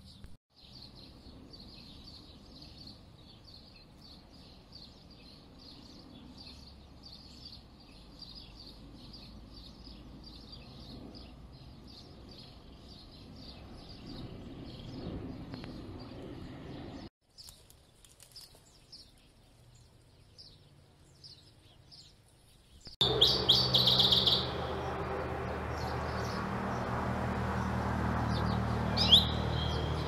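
Small birds chirping and singing, with a fast run of repeated high chirps for the first half. Near the end a louder steady rushing noise comes in suddenly, with a few sharp chirps over it.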